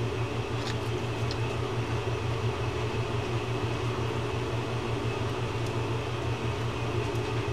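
Steady low mechanical hum with an even hiss over it, the background of a small workshop room, with a couple of faint ticks near the start.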